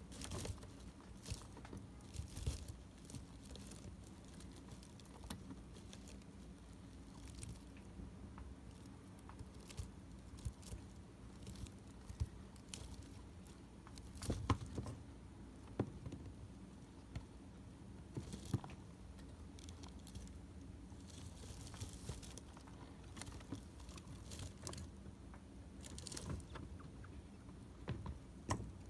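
Chinchillas moving, nibbling and grooming in their cage: scattered light clicks, scratches and short rustles at irregular intervals.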